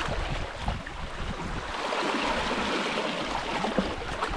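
Sea water washing and splashing over shoreline rocks: a steady, rushing noise that swells and ebbs.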